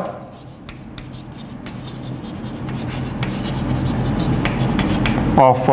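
Chalk scraping and tapping on a blackboard as words are written out, growing gradually louder, over a steady low hum.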